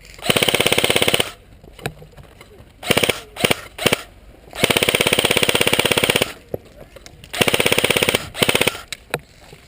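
Airsoft guns firing full-auto bursts, a fast rattle of shots: three long bursts of about one to one and a half seconds each, with shorter bursts of a few shots between them.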